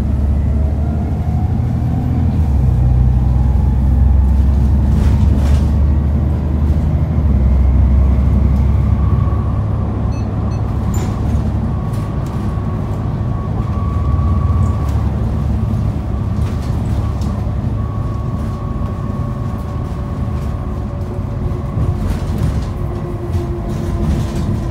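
Inside an Alexander ALX400 double-decker bus on the move: loud low engine drone with a whine that rises in pitch over the first few seconds as it pulls away. A steady higher whine follows, with a few brief rattles.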